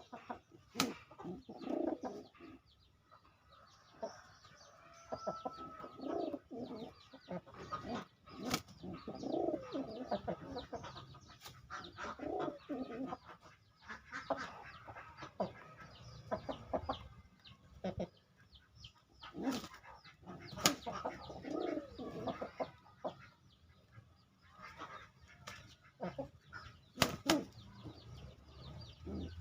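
Pigeons and chickens at their feed: wings flapping, scattered sharp taps, and repeated low clucking and cooing calls.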